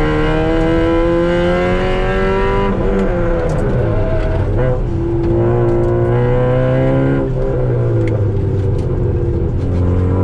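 Car engine heard from inside the cabin on a track lap. It rises in pitch for the first few seconds, falls about three seconds in, holds, then drops again about seven seconds in and near the end.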